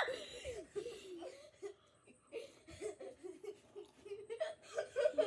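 Quiet, stifled giggling: short broken bursts of laughter from a person.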